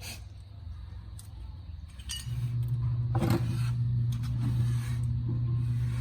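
A machine's steady low motor hum starts abruptly about two seconds in and runs on, with a short metallic clatter a little after three seconds.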